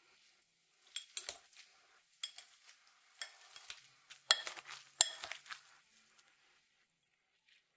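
A metal utensil clinking and scraping against cookware in a series of light strikes, each with a short metallic ring; the two loudest come just after the middle.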